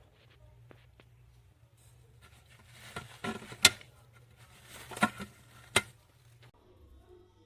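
Handling noise: rustling with a few sharp clicks in two short clusters, the loudest click a little over halfway in.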